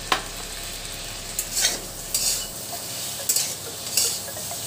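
Metal spatula stirring and scraping through spiced potatoes, tomato and green peas in a metal kadai, over a steady sizzle of frying oil. A sharp clink comes just after the start, then several scraping strokes. The masala is being fried down (kashano) with the peas.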